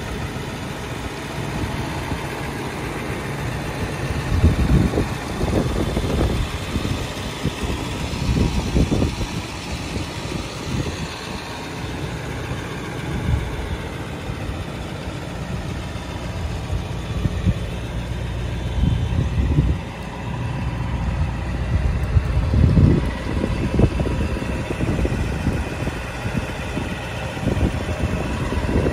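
Ford F-350's 7.3L Power Stroke turbo-diesel V8 idling steadily, with a few louder low swells along the way.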